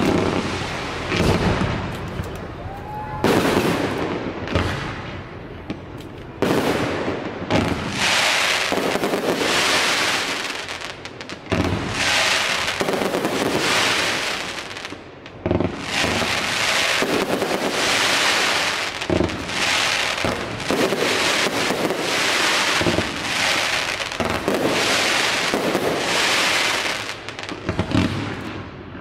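Fireworks display: a run of bangs from bursting shells, one every one to three seconds, each followed by a long hiss that fills the gaps.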